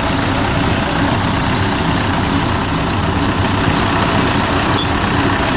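Engine of a tracked farm carrier idling steadily.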